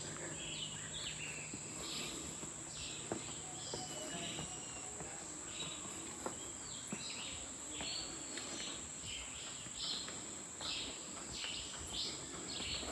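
Insects trilling in a steady high-pitched drone, with short bird calls scattered over it and a few faint knocks.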